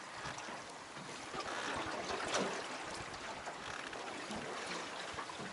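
Water sloshing and lapping against a small boat's hull, a steady wash of noise that swells a little about two seconds in.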